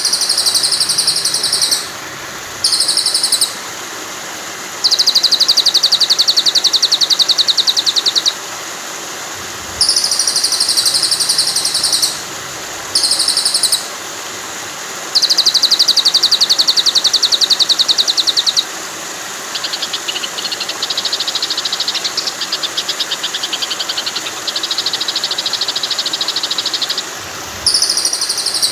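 Looped songbird training song (masteran): short bright chirping phrases and long rapid high trills, the sequence repeating about every ten seconds, over a steady rushing hiss of flowing water.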